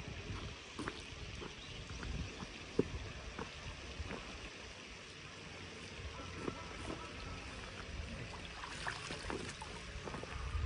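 Hooked coho salmon splashing at the surface as it is drawn into a landing net, with the splashes bunched near the end over a steady outdoor background and scattered small clicks.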